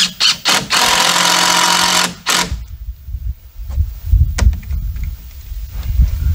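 Cordless drill driving a screw into a wooden deck rail: a few short spurts, then a steady whir for about a second and a half, stopping about two seconds in, and two more brief spurts. After that, only a few light clicks and knocks.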